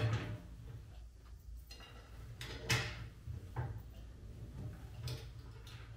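A few faint knocks and clunks, about three, spaced a second or so apart, over a low steady hum.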